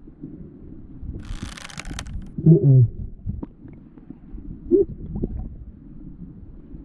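Camera microphone underwater in a shallow river: a steady, muffled low rumble of moving water. A burst of hiss comes about a second in, with scattered faint ticks and a couple of short muffled tones.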